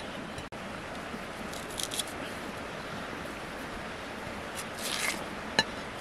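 Large knife blade scraping and slicing the skin off a jicama root: a few short, high-pitched peeling strokes and one sharp click, over a steady background hiss.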